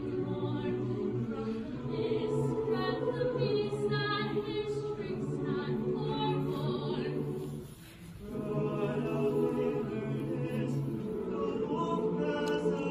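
Choir singing, with a short break between phrases about eight seconds in.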